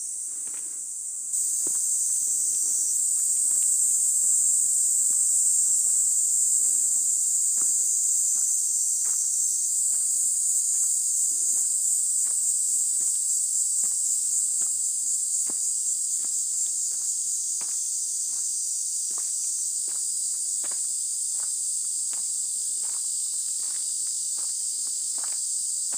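Cicadas shrilling in a steady high-pitched buzz that jumps louder about a second and a half in, with footsteps at a walking pace underneath.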